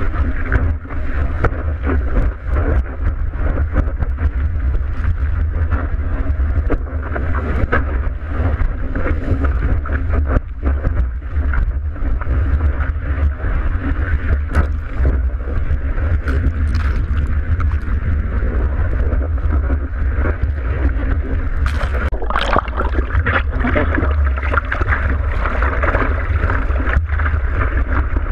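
Surf water rushing and sloshing against a GoPro Hero 3's waterproof housing as it rides through the waves, muffled, over a constant low rumble of water and wind buffeting. Short splashes break through now and then, more often near the end.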